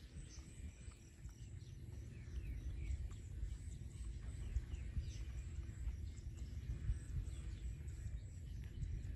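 Yard ambience: faint, short bird chirps over a low, uneven rumble.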